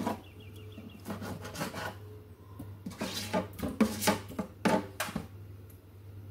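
Kitchen knife and utensils knocking and scraping irregularly against a board and dish while cow kidney is trimmed of fat and cut into small pieces, about a dozen sharp clatters in the first five seconds.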